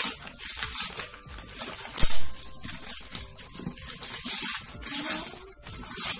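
Plastic gift packaging crinkling and rustling in irregular bursts as items are handled and unwrapped, loudest about two seconds in.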